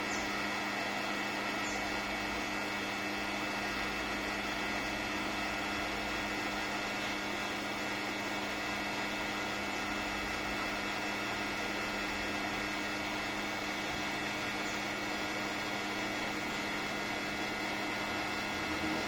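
Hot-air rework station blowing steadily while desoldering an IC from the circuit board: an even whir and hiss with a steady electrical hum under it.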